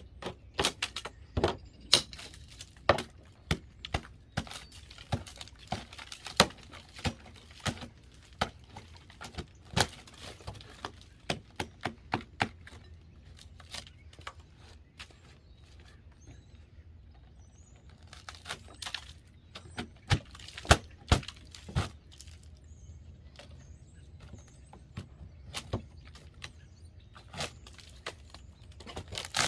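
Irregular sharp knocks and cracks of hand demolition work on old wooden wall framing and siding. They come thickly at first, thin out in the middle, then come in another cluster.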